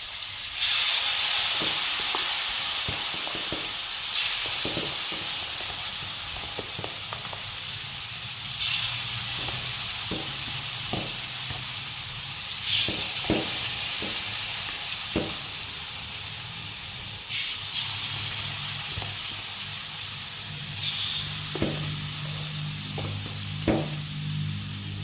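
Marinated chicken wing pieces frying in hot oil in a wok: a loud sizzle that jumps in about half a second in and slowly eases, with scattered sharp pops and clicks.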